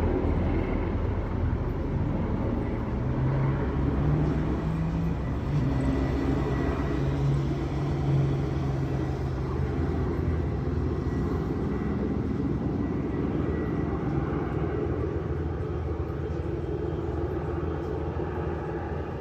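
Aircraft flying overhead: a long steady rumble from the sky with a faint engine tone in it, easing off slightly near the end.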